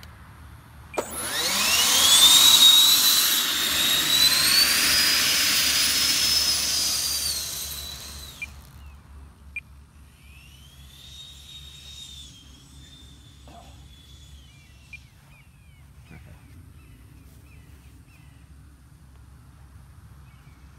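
The 105 mm electric ducted fan of a 12-cell HSD F-16 model jet spools up about a second in with a sharp rising whine. It runs loud at high power for about seven seconds, then cuts off suddenly. A fainter, more distant fan whine follows briefly a couple of seconds later.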